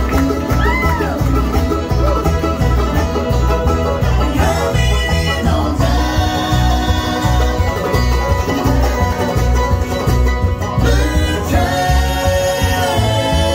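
A live bluegrass band playing: banjo, mandolin, acoustic guitars and upright bass over a steady bass beat, with sung vocals coming in at the microphones in places.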